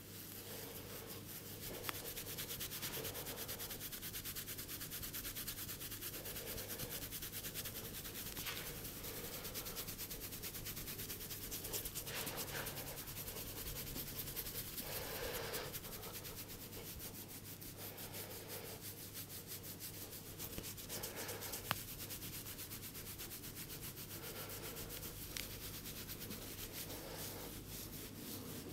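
Head massage: continuous fast rubbing over the scalp and hair, with a couple of brief sharp clicks.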